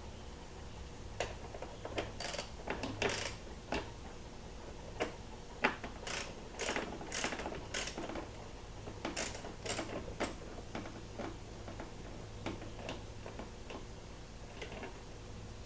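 Hand socket ratchet clicking in short strokes, with light metal clinks, as bolts holding a dirt bike's plastic body panels are undone. The strokes bunch up in the middle, at about two a second.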